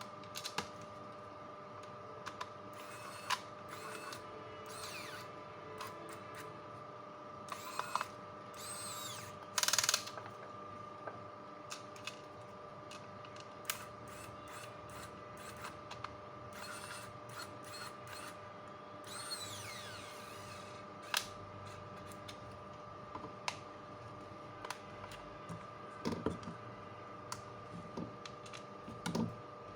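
Scattered clicks, scrapes and short mechanical noises of tools and small parts being handled, with the loudest, about a second long, near ten seconds in. Under them runs a steady faint high tone.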